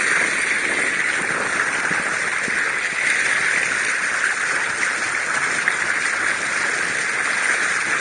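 Bow wave of a Canoa do Tejo sailing boat, water rushing and splashing steadily along the hull as the bow cuts through the river.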